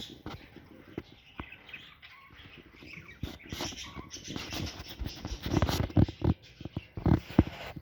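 Parrots calling, mixed with many sharp clicks and knocks that grow louder over the last few seconds.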